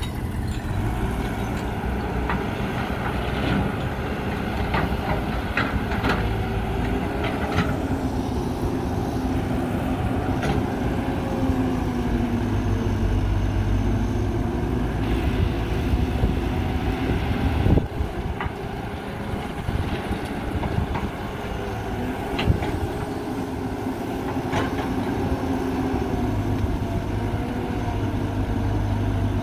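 Caterpillar 312B hydraulic excavator's diesel engine running under working load, its pitch rising and falling as the hydraulics work the arm and bucket. Occasional sharp knocks and clanks, the loudest about eighteen seconds in.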